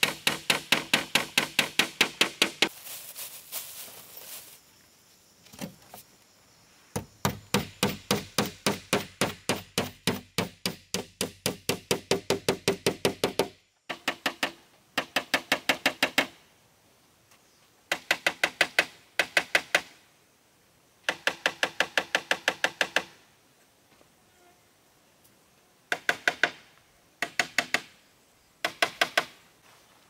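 Hammer driving nails into wooden boards: quick runs of sharp strikes, about five a second, broken by pauses of a second or more.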